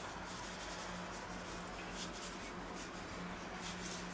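Faint, scratchy rustles of salt being shaken from a box onto a scored pork rind and rubbed in by hand, in a few short bursts. A steady low hum runs underneath.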